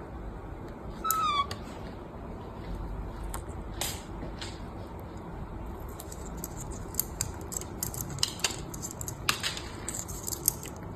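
A parrot gives one short, slightly falling whining call about a second in, then sharp beak clicks and nibbling sounds as the parrots work at a cherry, coming thick and fast in the second half.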